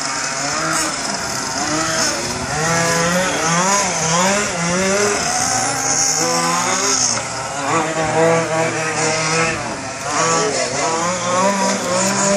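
Several 1/5-scale petrol RC trucks, a Losi 5ive among them, with small two-stroke engines revving up and down over one another as they race around a dirt track, their pitch rising and falling repeatedly through corners and straights.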